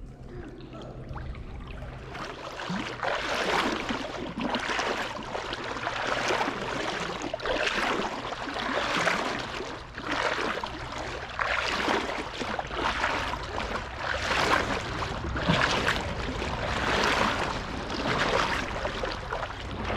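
River water rushing and splashing in uneven swells, about one a second.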